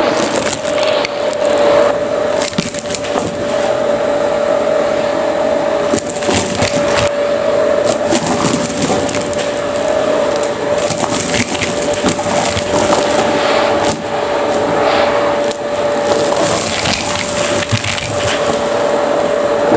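Vacuum cleaner running steadily through a hose attachment, sucking up a pile of small mixed debris off carpet, with the bits rattling and crackling through the nozzle and hose.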